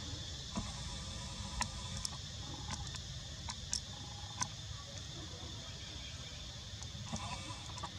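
Steady high insect drone over a low rumble, with a few faint scattered clicks.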